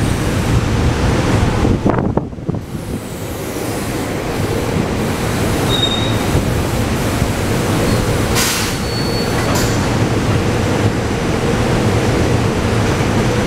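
SEPTA Regional Rail electric commuter train pulling into an underground platform and braking to a stop, its wheels rumbling steadily. Brief high wheel or brake squeals come around six and nine seconds in, with a short hiss a little past eight seconds.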